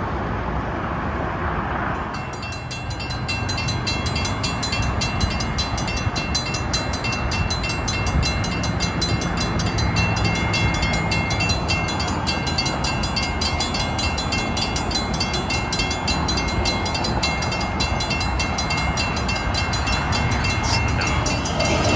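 Railroad crossing warning bell ringing in a rapid, even rhythm, over the low rumble of an approaching Amtrak Pacific Surfliner train that grows a little louder.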